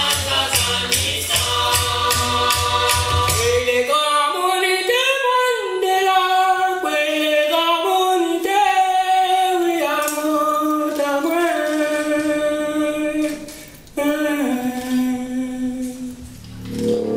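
Dance music with singing. For the first four seconds a percussion beat with deep bass plays under the voice. Then the beat and bass drop out and the voice sings on nearly alone, with a brief break and a click a few seconds before the end.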